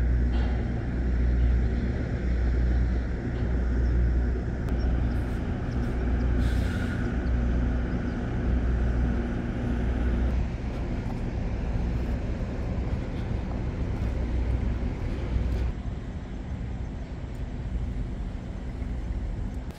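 Heavy engines idling: a steady low rumble and hum that eases off near the end.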